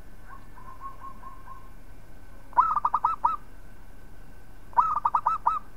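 Zebra dove (local perkutut) cooing. A soft run of short coos comes first, then two loud bursts of about six quick, clipped coo notes each, about two seconds apart.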